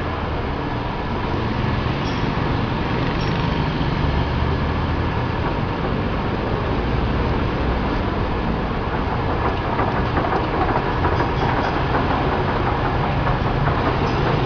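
Large Mazak lathe running, a steady mechanical noise with a faint, even whine.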